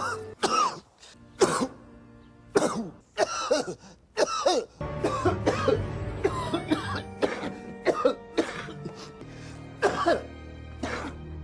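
A man coughing over and over in short, sudden fits, one cluster of coughs after another with brief gaps between them. From about five seconds in, soft background music plays under the coughs.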